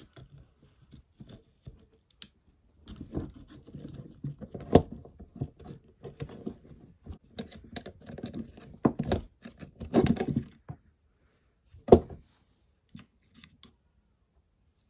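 Hands and a small metal pick working over the plastic parts of a disassembled cordless drill: scratching and rustling through the middle of the stretch, with scattered clicks and a few sharp knocks, the loudest about nine, ten and twelve seconds in.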